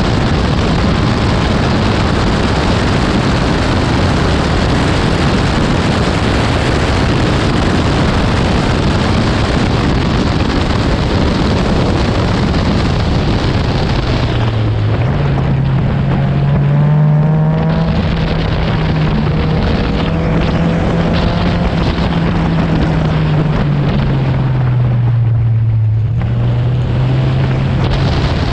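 Honda K24 four-cylinder engine of an Exocet kit car running hard on track under a loud rush of wind. Past halfway the engine note holds steady, drops briefly near the end as the revs come down, then climbs again.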